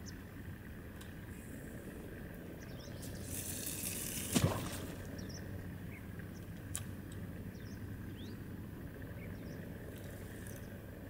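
A splash in the water about four and a half seconds in, over a steady outdoor background with a few faint high chirps.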